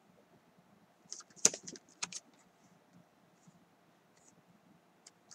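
Paper flash cards being handled and swapped: a short cluster of rustles and clicks about a second in, the loudest near the middle of it, then a few faint ticks.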